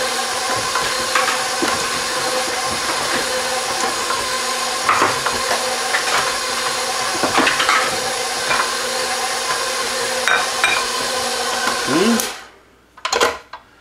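KitchenAid stand mixer running steadily, its flat beater working stiff chocolate chip cookie dough in the steel bowl, with scattered clicks and knocks. The motor is switched off about twelve seconds in and the sound cuts off suddenly, followed by a couple of knocks.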